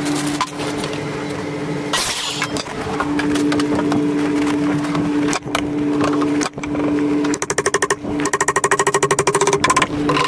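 A steady mechanical hum, broken off briefly a few times. About two-thirds of the way in it turns into a fast, even pulsing rattle for about two seconds.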